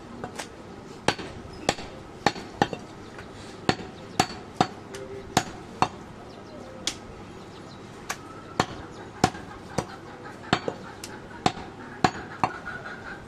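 Heavy curved cleaver chopping goat meat against a wooden stump block: about twenty sharp knocks at an uneven pace, roughly one or two a second, with a short pause partway through.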